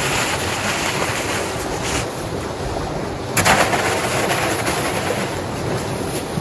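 Hand snow clearing with a snow dump (push scoop): a steady rushing noise of snow being worked, with one short, loud scrape about three and a half seconds in.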